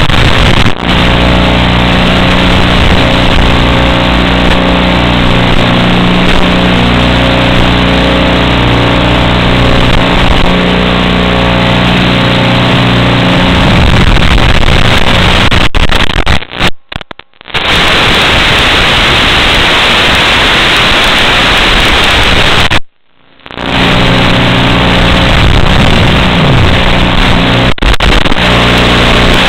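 Loud steady hiss and buzz from an analog FPV video receiver's audio channel, recorded by goggles; two brief dropouts to quiet come about 17 and 23 seconds in.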